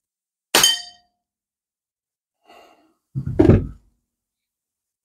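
SMK PR900W air rifle firing a single shot about half a second in, the pellet striking a hanging metal pan target that rings briefly. A dull, lower thump follows about three seconds in.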